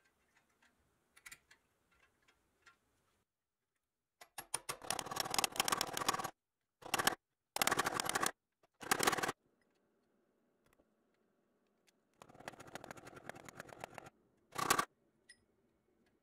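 A hand tool is worked against a brass eyelet set in a pressed-steel toy car chassis to fix it in place. After a few light taps, there are several bursts of rapid, rasping metal clicks, the longest about two seconds.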